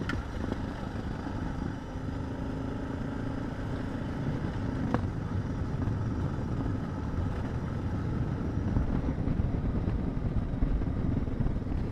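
Suzuki DR650's single-cylinder engine running steadily as the motorcycle rides a dirt mountain trail, with one sharp click about five seconds in.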